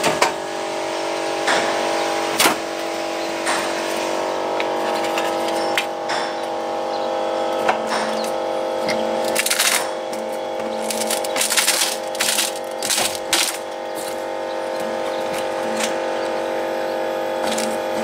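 Donaris Puma EA hydraulic band sawmill running with a steady hum from its motor and hydraulic pump, while its hydraulic chain log turner handles the log with scattered knocks and clicks. A run of sharp clicks and knocks comes about halfway through.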